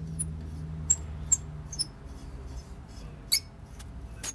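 Rusty steel threads of a Clayton & Lambert blowtorch's rod squeaking and clicking in short, sharp, high chirps as the rod is screwed by hand into its threaded fitting, about seven times, the loudest near the end.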